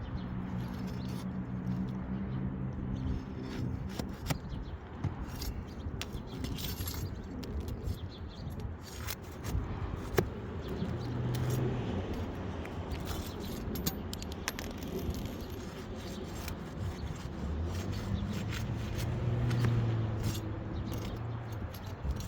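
Metal hand tools (trowel and flat bar) scraping and prying at asphalt shingles, with scattered sharp clicks and clinks of metal on nails and grit, and a single harder knock about halfway through.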